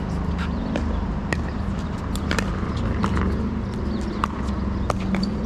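Pickleball play: sharp pops of paddles hitting the plastic ball, and the ball bouncing on the court, coming irregularly several times a second, over a steady low hum.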